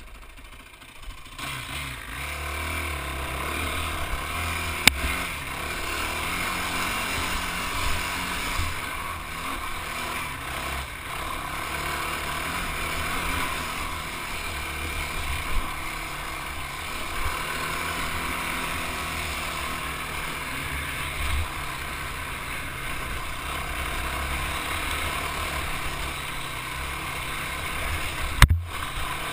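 Off-road vehicle engine running under way on a bumpy dirt trail, picking up about a second in. Occasional knocks come from the rough trail, with a sharp thump near the end.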